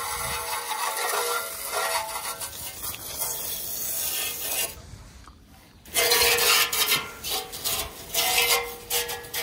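A garden hose spray nozzle jets water onto a paint-stripped steel motorcycle fuel tank, rinsing off the stripper with a steady hiss. The spray drops out briefly about halfway, then comes back louder and uneven as the stream plays over the tank.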